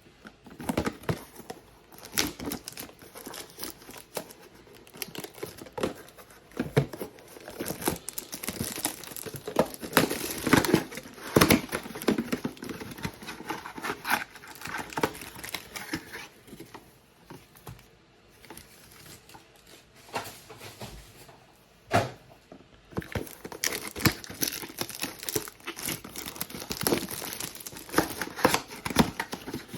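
Sealed trading-card boxes being unwrapped and torn open by hand: wrapping crinkling and tearing, with cardboard rustling and tapping, in irregular bursts that ease off for a few seconds about two-thirds of the way through.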